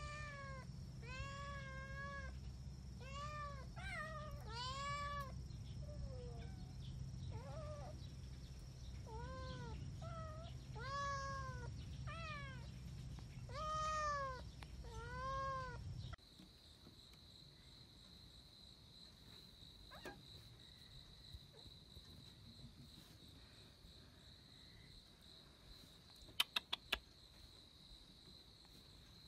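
A kitten meowing over and over, about a dozen short meows that each rise and fall in pitch. About halfway through the sound cuts to a steady high insect trill, with a few quick clicks near the end.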